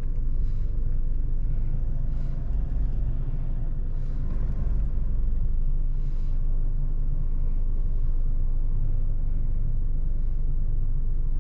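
Steady low rumble of a Volkswagen car, heard from inside the cabin, idling and creeping slowly backward in reverse while the Park Pilot system steers it into a parallel-parking spot.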